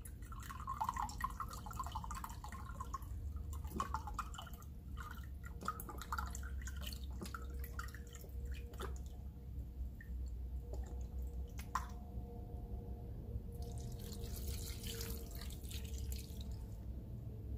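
White vinegar poured in a thin stream from a plastic jug into a glass measuring cup, trickling and dripping. About fourteen seconds in, the cupful is tipped into the pot with a brief soft pouring splash.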